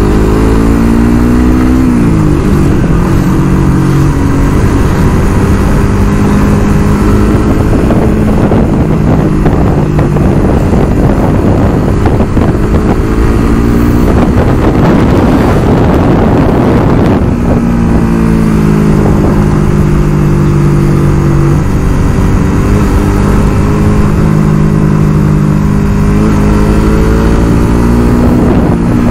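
Motorbike engine running while riding, its pitch dropping about two seconds in and climbing slowly through the last third. In the middle, for several seconds, a loud rushing noise covers the engine.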